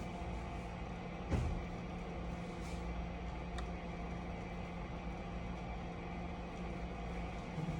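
Steady low mechanical hum, with a single short knock about a second and a half in.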